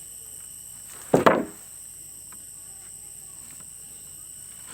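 A quick double knock of wood on wood, about a second in, like a sawn board being knocked or set down, over a steady high insect buzz.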